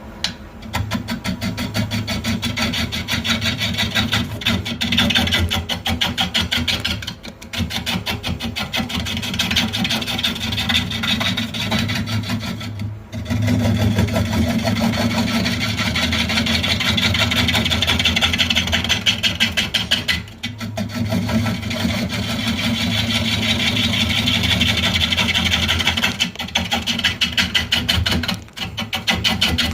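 Wood lathe running while a 1-inch roughing gouge cuts the face of a spinning camphor wood blank: a fast chattering rasp over a steady motor hum, with several brief breaks where the gouge comes off the wood.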